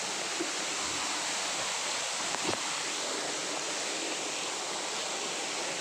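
A fairly tall waterfall pouring steadily into its pool, an even rush of falling water.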